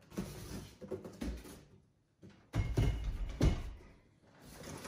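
Cardboard packaging being lifted off and handled: rustling and soft knocks, a brief pause, then several dull thuds, the loudest about three and a half seconds in.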